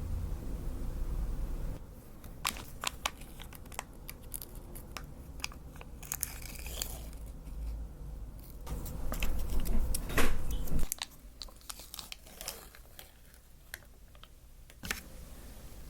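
Paper and plastic food packaging handled up close: crinkling, tearing and sharp crackles, loudest near the two-thirds mark, after a low rumble that cuts off about two seconds in.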